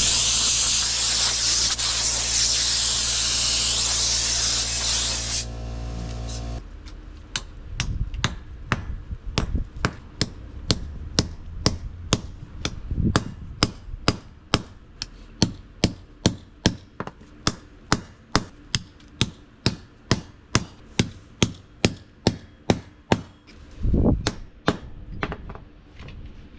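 Compressed air hissing from a blow nozzle over a steady hum for the first five seconds or so, clearing concrete dust from drilled anchor holes. Then steady hammer blows, about two a second, driving the setting tool into drop-in concrete anchors to set them.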